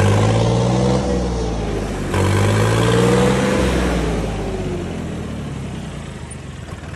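John Deere tractor's diesel engine revved twice, its pitch climbing and falling each time, then dropping back and getting quieter.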